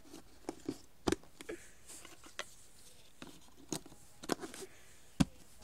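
Jigsaw puzzle pieces being handled and fitted together on a flat surface: scattered light clicks and taps, the sharpest one near the end.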